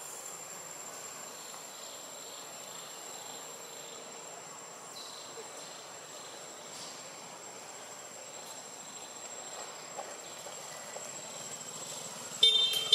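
Insects droning steadily in one high, unbroken tone. Near the end a sudden loud, short high-pitched call cuts in.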